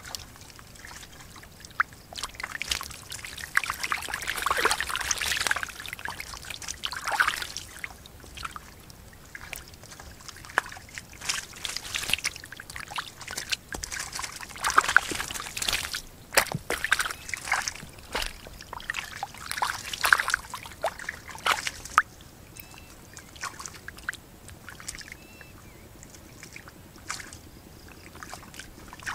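Fish and eels thrashing in shallow muddy water, sloshing and splashing in irregular bursts, calmer near the end.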